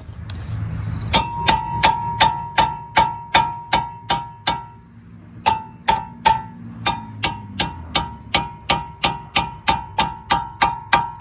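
Metal-on-metal tapping on a rusty bolt: a steady run of sharp strikes, about three a second, each with a short ring. There is a brief pause about halfway through.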